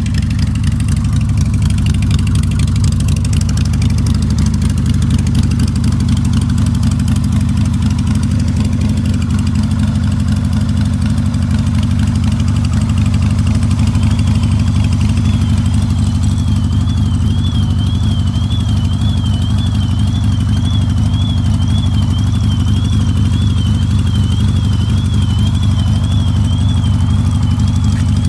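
Carbureted Harley-Davidson Sportster V-twin engine idling steadily while warming up. About halfway in, a car alarm set off by the engine's sound starts: a fainter, high, warbling tone that wavers about twice a second over the idle.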